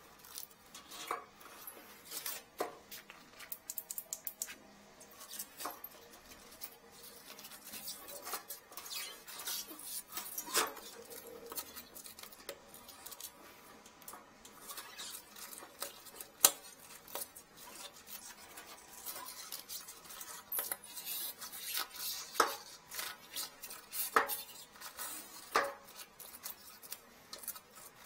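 Irregular metallic clicks and clinks as a metal hook tool knocks and scrapes against the porcelain inside a toilet's trap and the coffee spoon lodged there, the loudest about sixteen seconds in.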